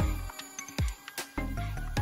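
Background music with a steady beat: electronic-style track with deep bass notes and regular percussion hits.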